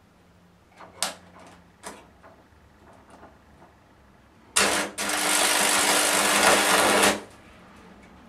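A 500 V AC supply from microwave oven transformers arcing across an alarm clock's circuit board. Two sharp snaps come about a second apart. A few seconds later a loud electrical buzz with a steady hum sets in, lasts about two and a half seconds, and cuts off suddenly.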